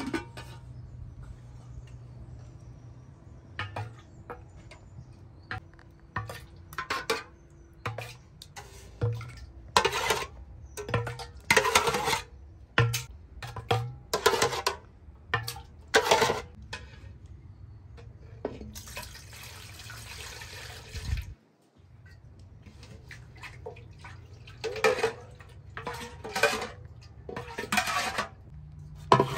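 Kitchen washing-up sounds: water splashing and pots or dishes knocking in irregular short bursts, with a stretch of about two seconds of steadily running water about two-thirds of the way through that cuts off abruptly.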